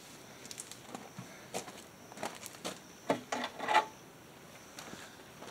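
A scatter of light knocks and clicks as a section of downspout is handled and set upright on the ground, loudest a little past the middle.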